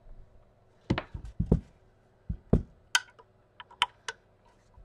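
Hands handling an opened fragrance dispenser unit and its wiring: a series of sharp knocks and clicks, with a few heavier thuds in the first couple of seconds and lighter clicks after.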